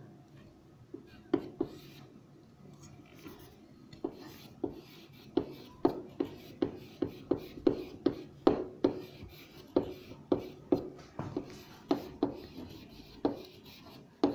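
Handwriting on a board: soft rubbing strokes, then from about four seconds in a quick run of sharp taps and scrapes, about two a second, as each character is written.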